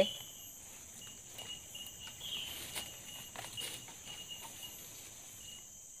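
Tropical forest ambience: a steady high-pitched insect drone, with thin repeated chirping and a few faint rustles and clicks. The lower background drops away near the end.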